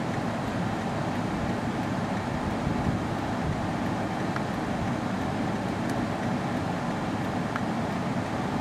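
Steady outdoor background noise: a constant rumble and hiss with no distinct events.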